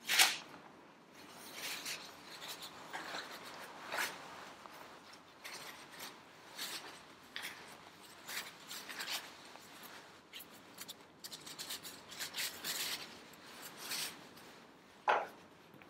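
Paper towel being pulled off a roll and rubbed over gloved hands to wipe them clean: irregular dry rustling and scrubbing strokes, loudest right at the start.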